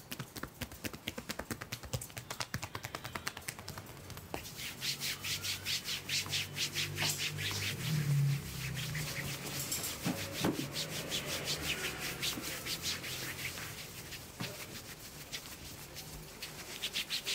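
A barber's hands massaging a man's back through his shirt: rapid tapping strokes for the first few seconds, then fast, rhythmic rubbing of the palms over the shirt fabric.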